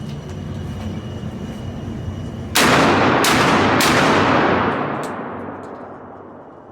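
Three gunshots in quick succession, about half a second apart, each blast echoing and slowly dying away.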